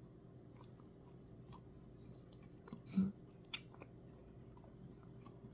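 Faint chewing of a mouthful of soft-serve ice cream with cookie pieces, with a brief louder knock about three seconds in and a click just after.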